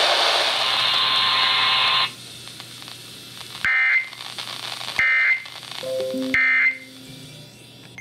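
Loud hiss of static from a RadioShack weather alert radio that cuts off about two seconds in. It is followed by three short, shrill data bursts about a second and a quarter apart: the SAME end-of-message code that closes an Emergency Alert System broadcast. A few low tones stepping downward sound between the second and third bursts.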